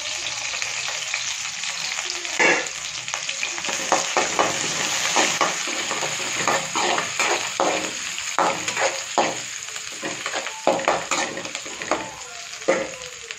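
Chopped garlic, grated ginger and curry leaves sizzling in hot oil in a pan. They are stirred, with repeated scraping and knocking strokes against the pan from about two and a half seconds in.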